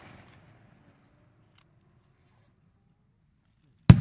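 Aerial firework shell bursting with one sharp, loud bang near the end, followed by a long rolling echo. Before it, the echo of an earlier burst fades out and a few faint crackles are heard.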